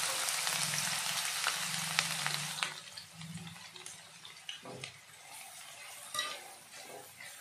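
Chopped onions dropped into hot oil in a nonstick kadai, sizzling hard at first; the sizzle dies down about three seconds in. A spatula then stirs the onions in the oil, with a few light taps and scrapes against the pan.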